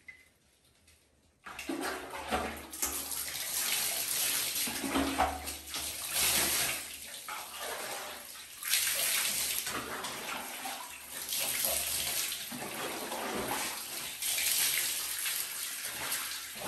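Water spraying from a hand sprayer and splashing over a monkey being bathed, starting abruptly about a second and a half in, then surging and easing as the spray moves.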